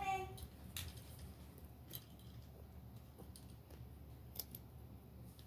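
A few faint, short clicks and taps of small fidget toys being picked up and set down, spaced a second or two apart, over a low steady hum.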